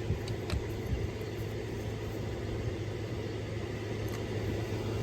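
A steady low hum with a few light clicks in the first second, as of hand tools or parts being handled under the car.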